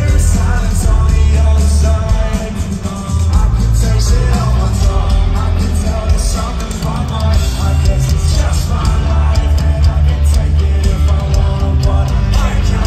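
Live rock band playing at concert volume with heavy bass, and a male lead singer singing into a microphone over it.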